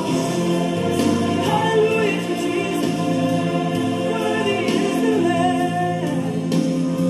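A gospel choir singing a worship song, voices held on long sustained notes over backing music.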